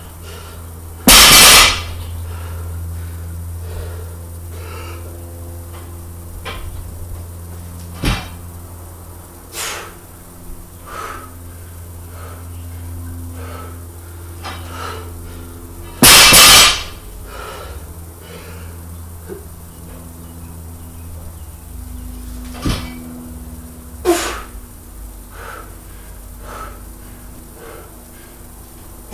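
A weightlifter's forceful exhalations while lifting a barbell: two loud, half-second breaths about fifteen seconds apart, with a few faint clinks in between over a steady low hum.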